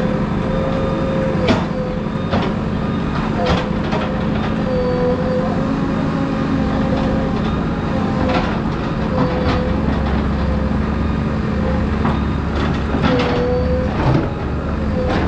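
JCB 3DX backhoe loader's diesel engine running steadily under work, with a wavering whine and sharp clanks now and then from the machine working.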